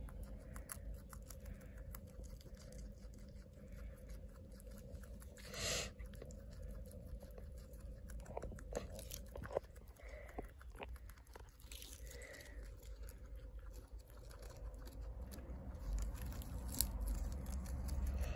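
Guinea pig chewing its food: many quick, small crunches, with a brief louder rustle about six seconds in.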